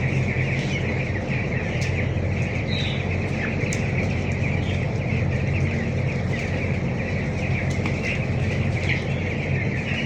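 A large flock of young broiler chicks peeping all at once, a dense, steady chorus of chirps, over the steady low hum of the shed's ventilation fan.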